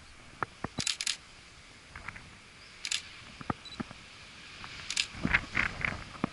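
Camera shutter firing three times, about two seconds apart, each a short crisp click, among scattered small clicks and handling knocks.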